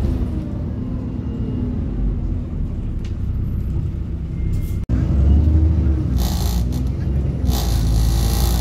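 A bus's engine and ZF automatic gearbox running, heard from on board, the engine note rising and falling. There is a sudden brief break just under five seconds in; after it the engine is louder and two bursts of hissing come through.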